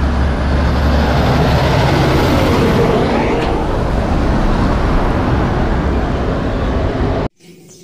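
Road traffic with a tanker semi-truck's diesel engine running close by: steady, loud engine and tyre noise that cuts off suddenly near the end.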